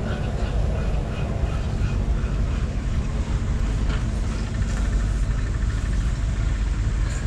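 Caterpillar 955 crawler's 7.0-litre four-cylinder diesel engine running steadily, a deep even rumble. A faint fast ticking joins in about halfway through.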